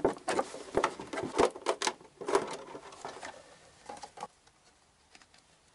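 Plastic milk bottle being cut open, its thin plastic crackling and snapping in a quick irregular run of clicks that thins out and stops after about four seconds.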